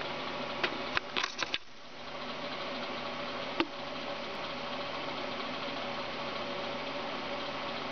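A steady mechanical hum, with a cluster of sharp clicks in the first two seconds and one more click about three and a half seconds in.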